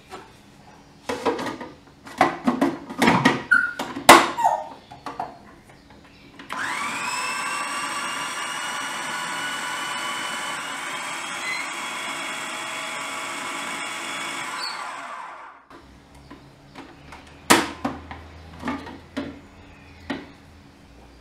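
Electric food processor puréeing onion and water. A few sharp plastic clicks and knocks come first, the loudest about four seconds in. Then the motor spins up and runs steadily with a whine for about nine seconds before winding down, followed by more plastic clicks and clatter as the lid is handled.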